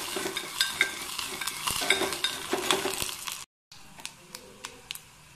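A metal spoon stirs and scrapes a sizzling tempering of ghee, cumin, mustard seeds and garlic-pepper paste in a metal pot, clinking against the pot. About three and a half seconds in, the sound cuts out briefly. A fainter sizzle with a few small pops follows, with no stirring.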